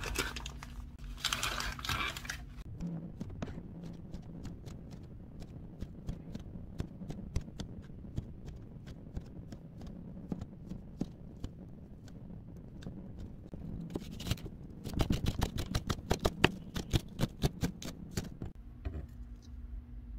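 Plastic packaging crinkles for the first couple of seconds. Then a chef's knife cuts on a plastic cutting board, slicing Korean fish cake into strips with separate knocking strokes. In the last few seconds the strokes become a faster, louder run of quick chops.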